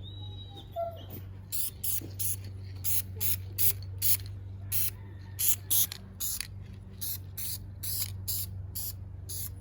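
Aerosol spray can spraying in many short bursts, about two or three a second, over a steady low hum.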